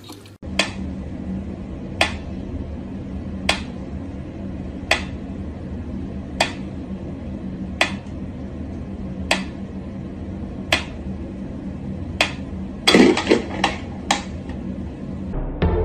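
Mechanical pyramid metronome ticking slowly and evenly, one sharp tick about every second and a half. Near the end a short flurry of louder clicks and knocks breaks in.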